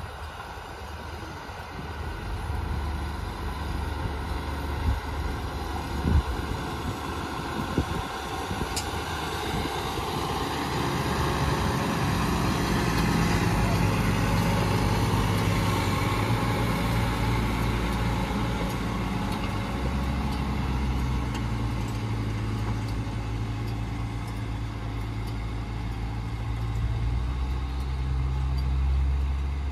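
John Deere 6250R tractor's six-cylinder diesel engine running as it drives over a maize silage clamp pulling a silage roller and edge compactors. It grows louder as the tractor passes close, about halfway through, with a few sharp knocks in the first several seconds.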